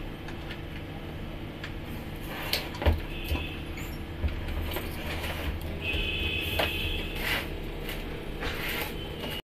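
Handling noise as a network cable is plugged into a laptop: scattered light clicks and knocks over a steady low hum.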